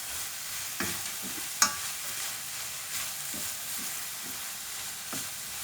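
Sliced onion, bell pepper and carrot sizzling in butter and oil in a frying pan as they are stirred, with a few light knocks of the utensil against the pan; the sharpest knock comes about a second and a half in.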